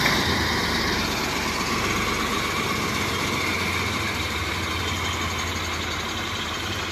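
Vehicle engine running steadily with a low hum.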